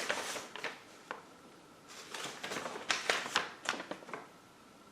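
Small plastic Playmobil figure parts being handled: a scattered run of light clicks and taps, with a short lull about a second in.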